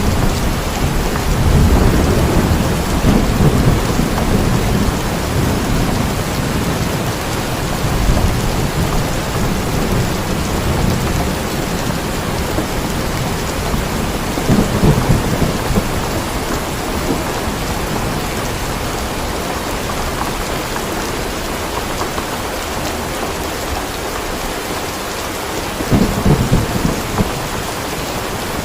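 Steady heavy rain with rolling thunder. The rumble is strongest over the first few seconds, and shorter rumbles swell up about halfway through and again near the end.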